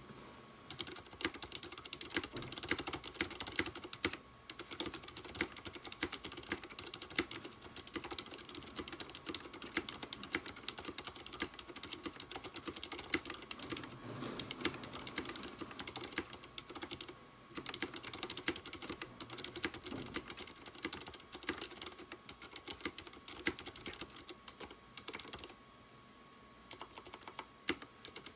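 Typing on an IKBC MF108 mechanical keyboard with Cherry MX Silent Red switches, its aluminium case filled with sound-dampening foam: a fast, continuous run of keystroke clicks, with brief pauses about 4 s in, about 17 s in, and for a second or so near the end.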